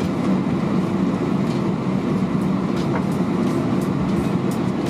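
Airbus A320 cabin noise while taxiing: the engines running at idle as a steady hum with a couple of steady low tones, and a few faint ticks from the cabin.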